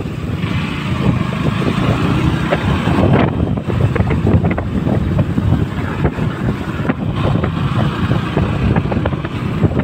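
KTM Duke 200's single-cylinder engine running while the bike is ridden along, with wind rushing over the microphone, stronger in two spells.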